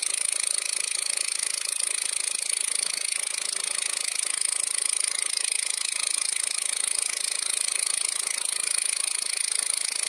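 Homemade engraving machine driving a graver into an aluminium shift knob: a steady, high buzzing hiss with rapid fine ticks.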